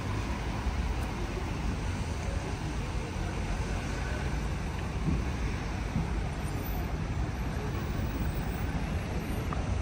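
Busy city street ambience: a steady wash of road traffic noise with a low rumble.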